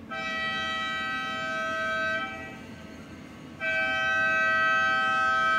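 A horn sounding two long blasts of about two seconds each, several steady tones together like a chord, with a short gap between them.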